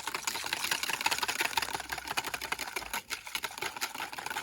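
Utensil rapidly stirring mayonnaise sauce in a bowl: a fast, steady run of clicking taps against the bowl, with a brief pause about three seconds in.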